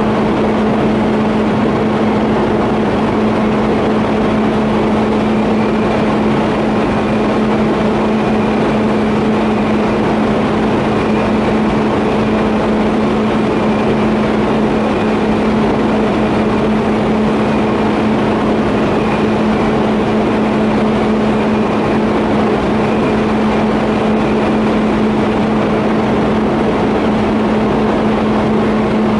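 TIG welding setup running: a steady hum with one constant low tone over an even hiss.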